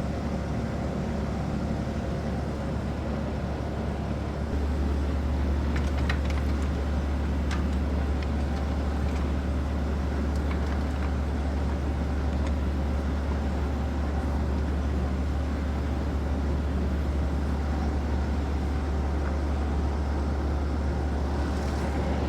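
A steady low machine hum, a little louder from about four seconds in, with a few faint clicks from the bolt being worked into place at the back of the axle.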